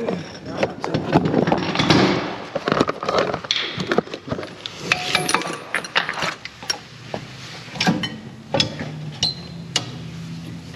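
Irregular metallic clinks, taps and knocks of hand tools and axle parts being handled during CV axle work, with a low steady hum coming in near the end.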